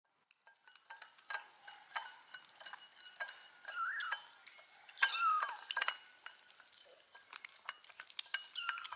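Kittens feeding from a dish: many small clinks and clicks against the bowl, with two short high kitten mews, one about four seconds in and a falling one just after five seconds.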